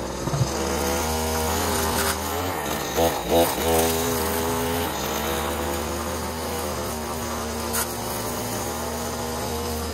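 Small two-stroke petrol engine of a garden power tool running, its revs rising and falling, with a short run of revving about three seconds in.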